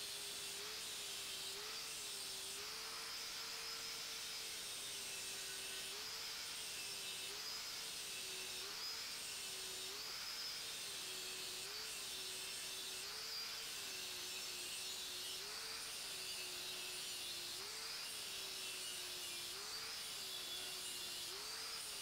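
Angle grinder with an abrasive cut-off disc running under load, cutting through a round steel pipe while it is worked around the circumference. The motor's pitch sags about once a second each time the disc is pressed into the metal, over a steady grinding hiss.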